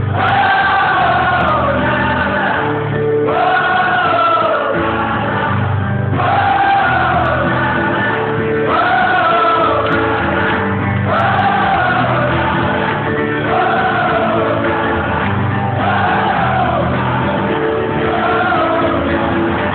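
Live rock band playing, with a sung phrase that repeats every couple of seconds, and a crowd singing along in a large hall. The recording is from within the audience, muffled and with the top end cut off.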